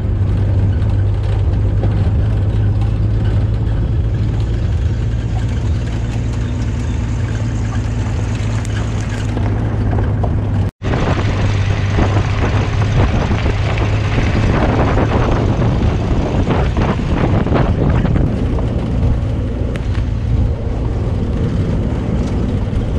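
A motor vehicle on the move: a steady low engine drone under a rushing noise, broken by an instant of silence about eleven seconds in.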